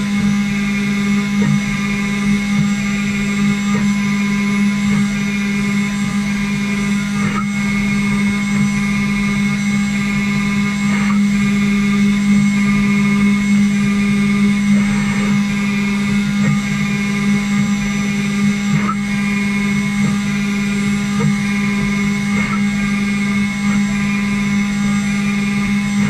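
CNC router's spindle running steadily with a constant hum and whine, with a few faint brief scrapes now and then.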